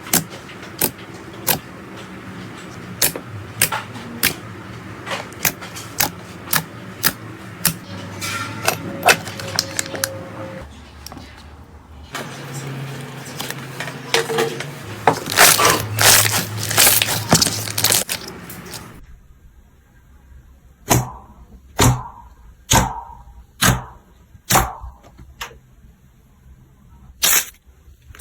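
Slime being handled and pressed, trapped air popping in a run of sharp clicks and crackles. The crackling is densest through the middle, then gives way to separate pops about one a second near the end.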